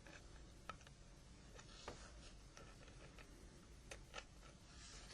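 A few faint, scattered clicks of an SRT6 opening tool working around the edges of a Nokia 1100's key mat to free it.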